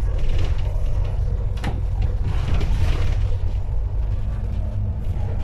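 Steady low rumble of a double-decker bus on the move, heard from the upper deck, with a brief rattle or knock about a second and a half in.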